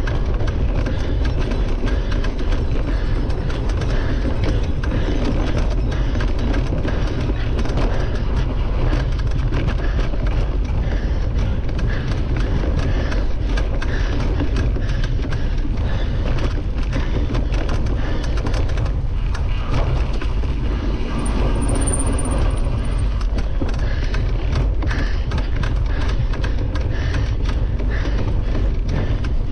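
Cyclocross bike riding fast over bumpy grass: a steady low rumble of wind on the bike-mounted camera and the knobby tyres rolling on turf, with frequent small knocks and rattles from the bike over the bumps.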